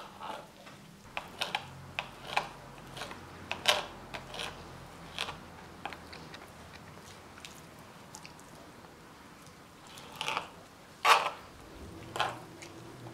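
Kitchen knife chopping herring fillets into small pieces on a cutting board: irregular taps of the blade against the board, with a couple of louder knocks near the end.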